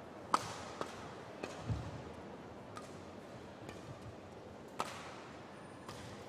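Badminton rally: sharp cracks of rackets striking the shuttlecock about once a second, with a low thud of a player's footfall about two seconds in, over a faint murmur of the hall.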